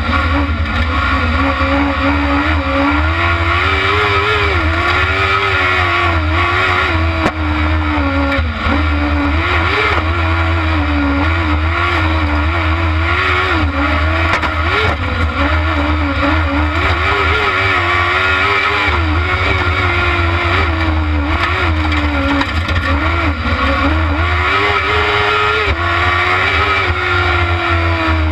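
Kart cross buggy's engine heard from on board at racing speed, its pitch rising and falling again and again as the driver accelerates and lifts through the corners, over a steady low rumble.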